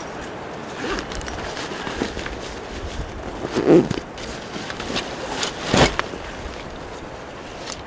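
A backpack being handled and rummaged through: rustling and scraping, with scattered sharp clicks. Two louder scrapes come about four and six seconds in.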